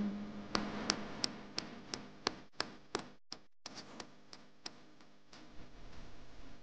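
Wooden paddle patting the wall of a large unfired clay pot as it is shaped, about three even taps a second that grow fainter and stop about five seconds in.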